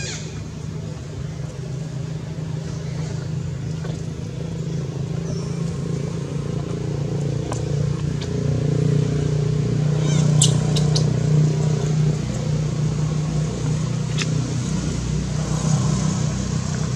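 A motor vehicle's engine running steadily, growing louder toward the middle and then easing slightly, with a few sharp clicks about ten seconds in.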